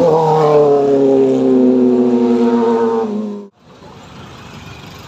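Motor scooter engine carrying two riders up a steep grade, its loud steady note sinking slowly as it labours. About three and a half seconds in it breaks off abruptly, and only fainter engine and road noise follows.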